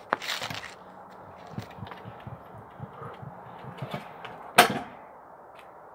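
Stunt scooter on pavement: a sharp clack and a short scrape at the start, soft wheel knocks as it rolls, then one loud clack with a brief ring about two-thirds through as the scooter comes down hard on the concrete after a double tail whip attempt.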